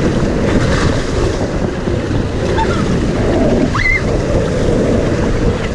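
Rushing, splashing water of a raft ride's flume, with wind buffeting the microphone. A brief high rising squeal about four seconds in.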